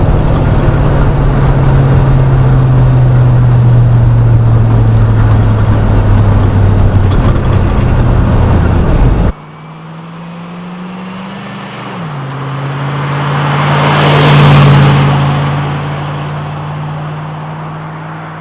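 5.3L LM7 V8 running through a Cherry Bomb muffler, loud and steady with a deep low drone. About nine seconds in it cuts suddenly to a quieter take: the engine note rises and drops back, then the exhaust sound swells to a peak and fades away, like the truck driving past.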